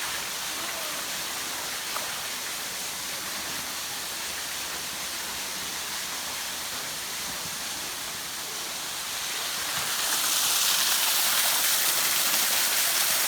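A waterfall about 12 to 14 feet high, pouring steadily into its pool with an even rushing hiss. The rush grows louder about ten seconds in.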